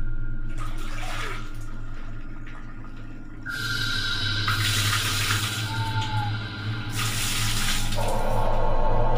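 Water scooped from a tub with a plastic dipper and poured over hair, splashing in several separate pours, over a steady background music drone.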